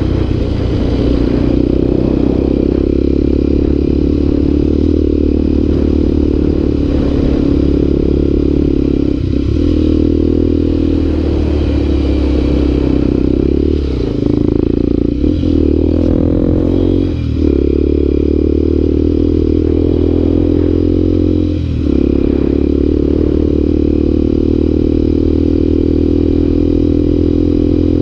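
Motorcycle engine running steadily while riding along a dirt road, heard from on the bike. The engine note drops briefly a few times past the middle and then picks back up.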